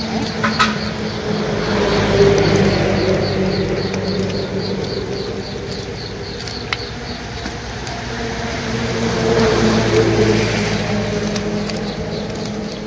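A motor engine running steadily, growing louder about two seconds in and again around nine to ten seconds. A fast, even high-pitched chirping repeats through the first half.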